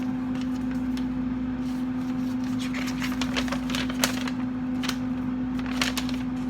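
Kalorik air fryer running with a steady hum, while paper crackles and rustles in short bursts as the pages of a printed instruction booklet are flipped.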